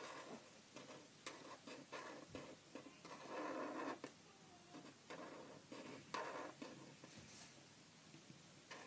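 Felt-tip pen drawing on paper: faint, irregular short strokes and taps of the nib, with a few longer strokes.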